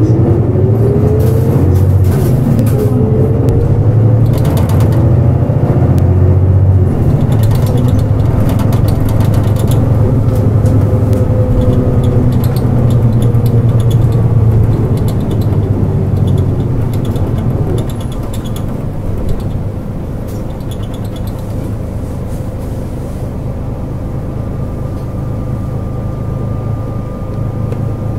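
Nissan Diesel KL-JP252NAN city bus heard from inside the cabin. Its diesel engine pulls away with a rising whine through the gears, then eases off a little past halfway to a quieter steady run.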